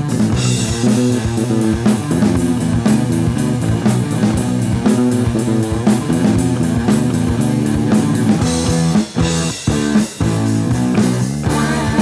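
Rock band playing an instrumental passage: guitars, bass and drum kit, with no singing. Near the end the band stops short several times between hits.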